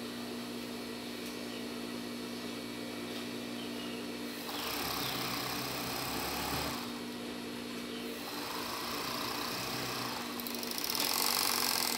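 Kingsew overlock sewing machine stitching lace onto fabric: a steady motor hum, with louder runs of stitching about four and a half seconds in for two seconds, more lightly a little later, and again near the end.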